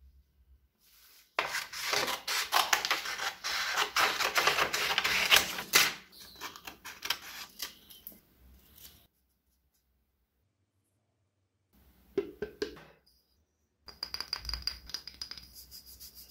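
Scissors cutting a paper template, with the paper rustling: a dense run of rapid scratchy snips for a few seconds, then quieter bursts that stop and start. A faint steady high whine runs under the last couple of seconds.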